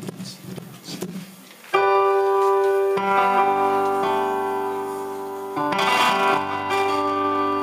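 Yamaha PSR-S750 arranger keyboard playing sustained chords, coming in suddenly about two seconds in and moving to a new chord twice. Before that there are only a few faint clicks.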